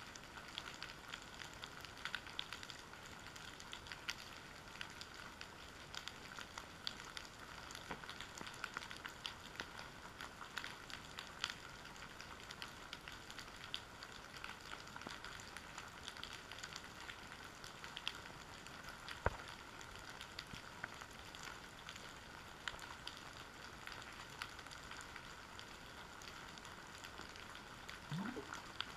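Underwater background crackle on the seabed: a steady fizz of many tiny clicks and ticks, with one sharper knock about two-thirds of the way through and a short rising tone near the end.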